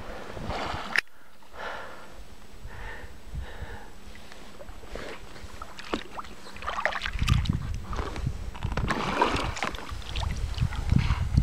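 Kayak paddling: the paddle dipping and splashing in calm water. A low rumble of wind on the microphone grows louder from about seven seconds in.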